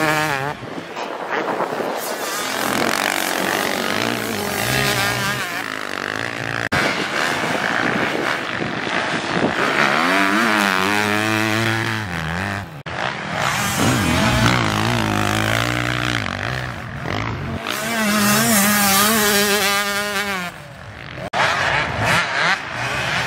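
Motocross dirt bike engines revving as the bikes ride through the sand track, the engine pitch rising and falling with the throttle, with several passes by.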